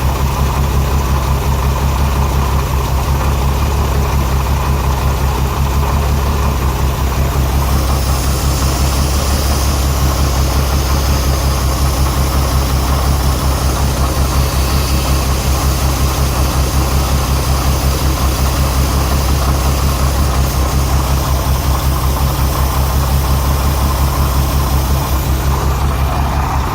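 Renix Jeep Cherokee 4.0-litre straight-six idling with a steady, regularly pulsing rough running. Cylinder 6 is misfiring: its exhaust valve rocker is not moving as much as the others.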